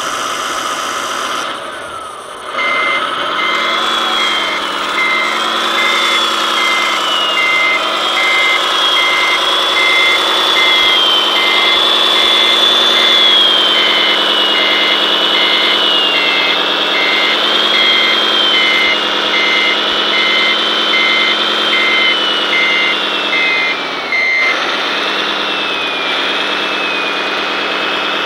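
Radio-controlled model trucks' sound modules playing diesel engine sound, with a high whine that rises and falls with the throttle. A reverse warning beeper sounds steadily, about one beep every 0.6 s, starting a few seconds in and stopping a few seconds before the end.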